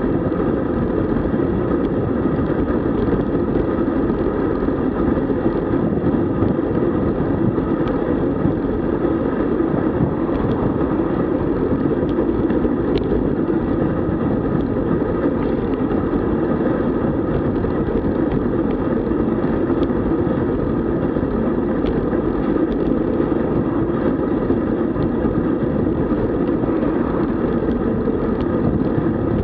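Steady wind buffeting and road noise on the camera microphone while riding a road bike, a constant low rushing with no clear changes.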